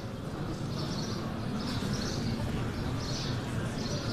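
Dense crowd of many voices murmuring together in a large reverberant hall, a steady hubbub with no single voice standing out. Short high chirps recur about once a second above it.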